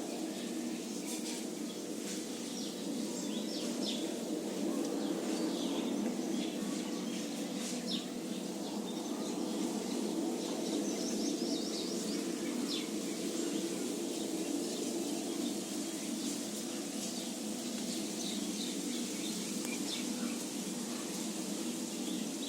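Small birds chirping in many short calls, scattered and overlapping, over a steady low background rush that is the loudest part of the sound.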